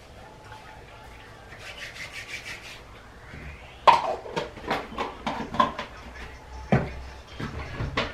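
Hard objects, the grooming products and tools, being handled and set down on a bathroom counter. Soft rustling comes first. About four seconds in there is a sharp knock, followed by a quick run of clicks and taps, and another sharp knock near seven seconds.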